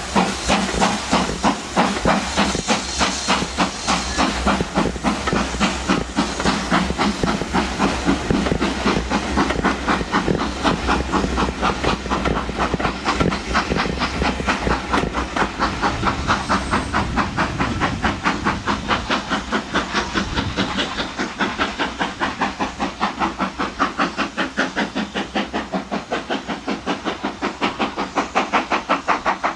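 Steam locomotive working hard as it pulls a train of coaches away, its exhaust making a quick, even chuffing that carries on as the train draws into the distance.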